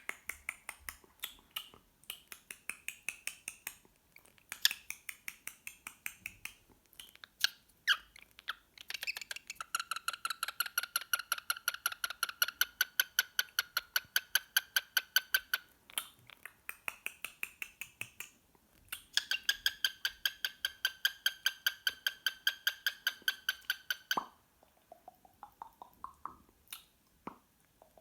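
Cockatiel chirping in a fast even rhythm, about five short calls a second, in two long bouts. Near the end come a few short rising whistles.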